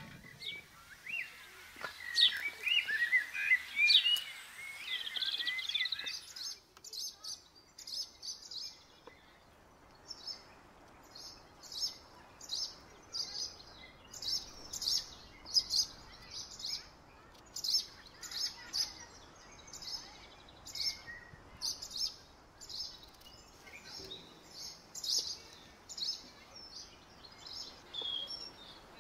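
Birds chirping: a busy spell of varied chirps in the first few seconds, then a steady run of short, high chirps about twice a second.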